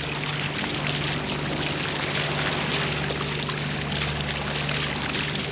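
Water rushing and hissing steadily along a moving catamaran's hull, with a constant low engine hum beneath it.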